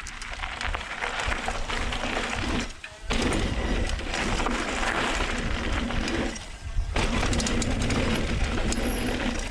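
Mountain bike descent picked up by a GoPro Hero 7 in a foam wind cover, in stereo-only microphone mode: muffled wind rush, tyres on dirt and the bike rattling, with a low rumble throughout. The noise drops out briefly twice, about three and six and a half seconds in, then comes back at full level.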